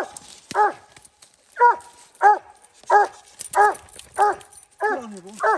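Coonhounds barking treed, a steady run of short barks about one every two-thirds of a second: the sign that the dogs have a raccoon up the tree.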